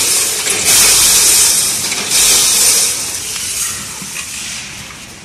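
A 14-head multihead weigher running on small metal springs, giving dense bursts of metallic rattling hiss about a second and a half apart. The sound fades over the last couple of seconds.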